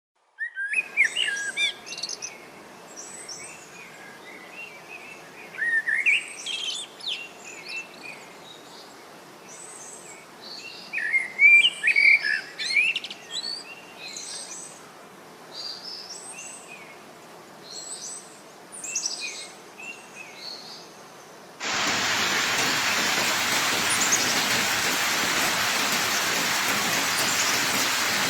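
Small birds chirping and calling in short clusters of high notes over a quiet background. About 22 seconds in, the sound switches abruptly to a steady, louder hiss.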